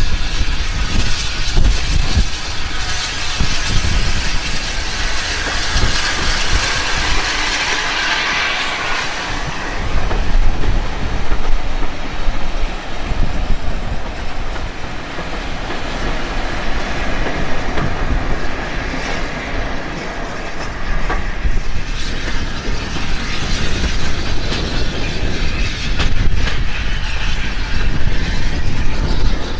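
Hunslet saddle tank steam locomotive hauling passenger coaches past, the wheels clicking over the rail joints as the coaches roll by.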